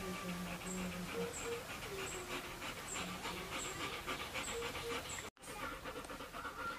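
Rottweiler panting quickly and rhythmically with its mouth open, breaking off briefly a little after five seconds in.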